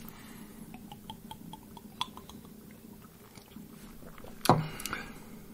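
Two people swallowing a shot of liquor: quiet gulps and small mouth and lip clicks. About four and a half seconds in comes a short, louder vocal exhale.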